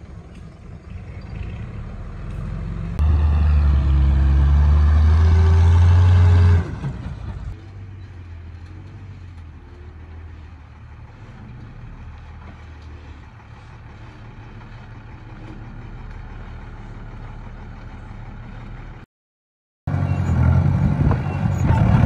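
Heavy diesel engine of a Komatsu bulldozer at work. About three seconds in it rises sharply under load for roughly three and a half seconds, its pitch climbing and then falling. It then settles back to a steadier, quieter run, cuts out completely for under a second near the end, and comes back loud.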